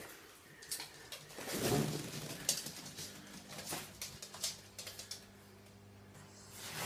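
Scattered light clicks and rustles with a louder bump about two seconds in, from a small child climbing onto a plastic disc swing on a rope while the phone filming her is moved about. A faint steady hum runs underneath from about halfway.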